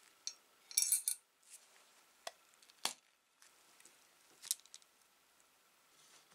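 Small metal blowtorch parts and a wrench clinking and knocking during hand reassembly: a quick cluster of light clinks about a second in, then scattered single knocks, the sharpest near three seconds.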